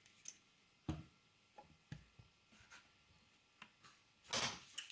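Scattered light knocks and taps of small wooden pieces being handled and set in place, with a short scraping rustle near the end.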